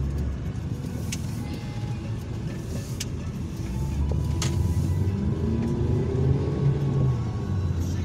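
Car interior noise while driving: a steady low rumble of engine and tyres, with a song playing faintly from the car's audio. A few sharp knocks cut through, and the rumble gets a little louder about halfway through.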